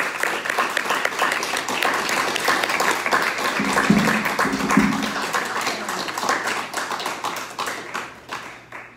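Small audience applauding with hands, the claps thinning and dying away near the end.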